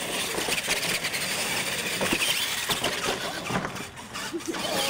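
Radio-controlled monster trucks racing on dirt, their motors whining and rising and falling in pitch as they speed up and slow down.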